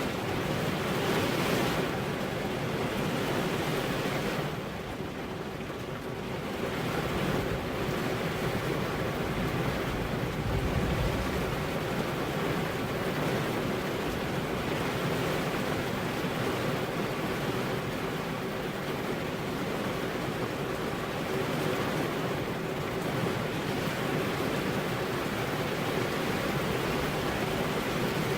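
Steady rainfall, an even hiss that dips briefly about five seconds in.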